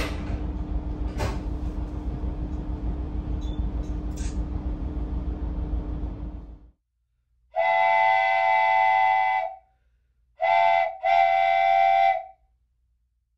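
Steady rumble of an ET122-1000 diesel railcar's engine heard inside the cab, with a constant hum, which cuts off after about six and a half seconds. A train horn then sounds three times: long, short, long.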